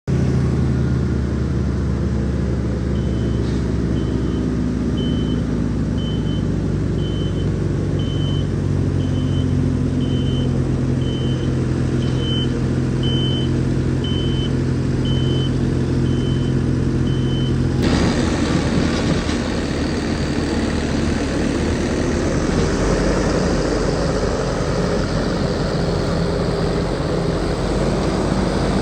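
Skid steer engine running steadily, its reversing alarm beeping about once a second. About 18 seconds in the sound cuts abruptly to a rougher, noisier run of machinery.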